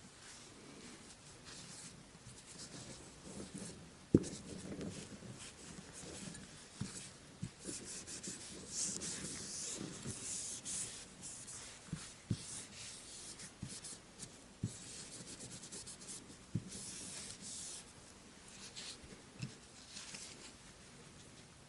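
Parts of a disassembled Kizer T1 folding knife being rubbed and wiped clean by hand, in short scrubbing spells, with a few light knocks and taps as the parts are handled; the sharpest knock comes about four seconds in.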